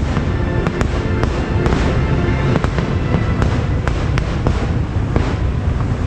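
Fireworks going off in quick succession, sharp bangs and crackles several times a second, with music playing along.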